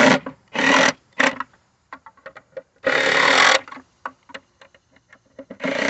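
Cordless impact driver hammering pin-head screws into a plastic pool skimmer body, run in short bursts: one at the start, two quick ones just after, a longer one about three seconds in, and another near the end. Small clicks fall between the bursts. Each screw is stopped as soon as the gasket squeezes out a little, because over-tightening cracks the skimmer.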